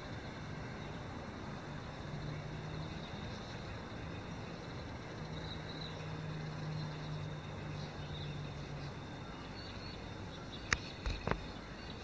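Steady outdoor background noise with a low engine hum from a distant vehicle, swelling in the middle and fading out, and a few faint high chirps. Two sharp knocks sound about a second apart near the end.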